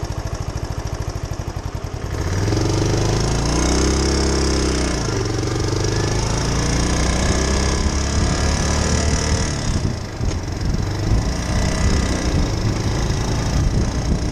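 2001 Suzuki Savage's 652cc single-cylinder four-stroke engine idling with an even, regular thump, then revved up about two seconds in and settling into faster running; it sounds almost like a lawnmower.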